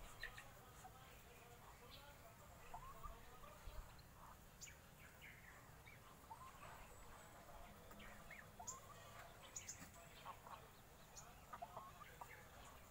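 Faint, scattered short calls of backyard poultry: chickens and other fowl calling on and off throughout.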